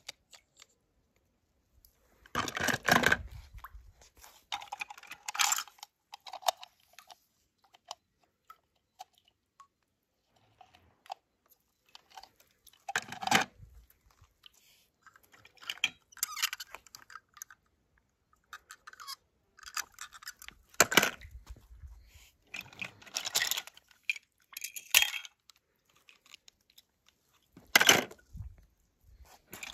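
Die-cast toy cars being handled, clattering and clinking in short bursts separated by quiet pauses. The loudest clatters come about three seconds in and near the end.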